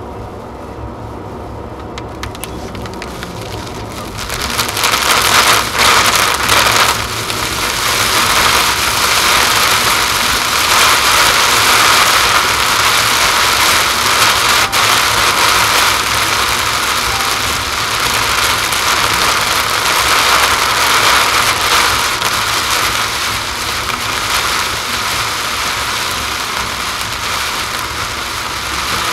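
Heavy rain hitting a moving car's roof and windshield over tyre and road noise, heard from inside the car. The downpour comes on suddenly about four seconds in and stays loud.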